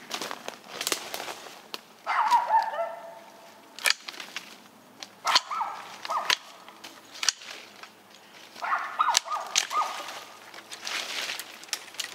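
Dogs barking in three short bouts a few seconds apart, mixed with sharp snaps of long-handled Sandvik loppers cutting through saplings and brush.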